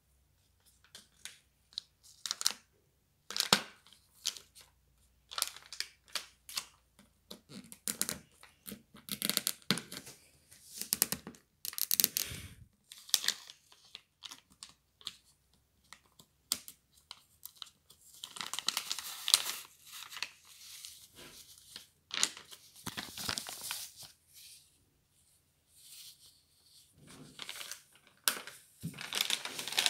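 Soft plastic wrapper of a pack of baby wet wipes crinkling and rustling in irregular bursts as it is handled, with tearing sounds as the pack is opened. Near the end, a sharp click as the plastic flip-top lid is pressed.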